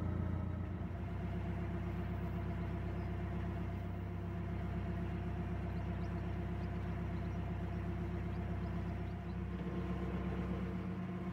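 Narrowboat's inboard diesel engine running steadily as the boat cruises along the canal, a low, even engine hum.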